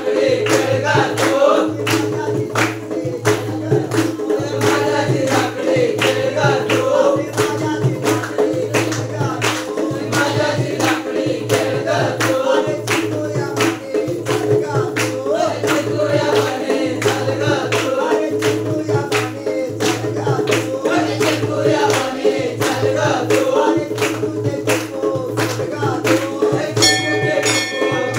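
Group folk singing for a Konkan Gauri-Ganpati dance, with a two-headed barrel drum (dholki) beating an even rhythm and hand clapping. A brief high ringing sounds near the end.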